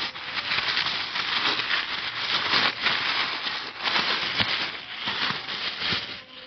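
Thin pink gift-wrapping paper crinkling and tearing as a present is unwrapped by hand. A steady rustle that stops just before the end.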